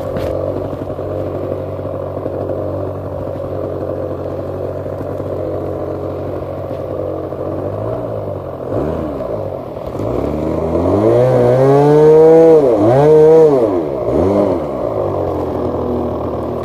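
Model airplane's nose-mounted engine and propeller idling steadily, then throttled up and down several times over a few seconds from about halfway through, the pitch rising and falling, before settling back to idle: a pre-flight throttle run-up before take-off.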